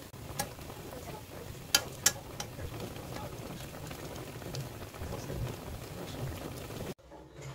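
Spicy braising sauce simmering and bubbling in a frying pan around yellow croakers, a steady crackling hiss. A few sharp clicks of a metal spoon against the pan in the first two seconds; the sound cuts off abruptly near the end.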